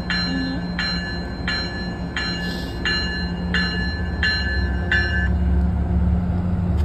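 An MBTA commuter train's bell ringing steadily, about three strokes every two seconds, stopping about five seconds in. Under it runs the low rumble of the diesel locomotive, which grows louder near the end as the train pulls out.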